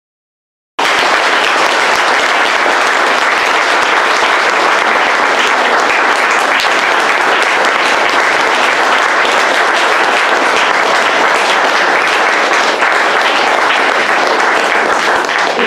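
Audience applauding steadily, starting suddenly about a second in and dying away at the end.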